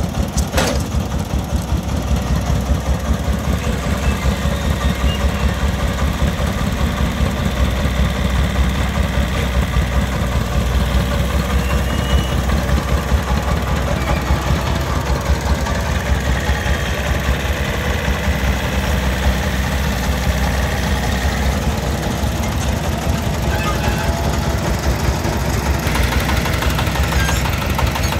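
Horizontal single-cylinder diesel engine of a công nông three-wheeled farm truck idling steadily, an even rapid putter of firing strokes. A single sharp knock about half a second in.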